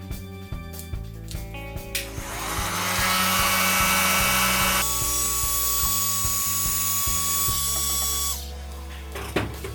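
A small high-speed power tool runs for about six seconds, starting about two seconds in and cutting off near the end, over background music.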